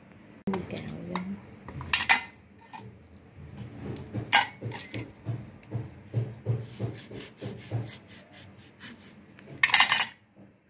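Knife cutting through small mackerel on a wooden chopping board: a run of dull knocks about three a second as the blade works, broken by a few sharp metallic scrapes and clinks, the loudest near the end.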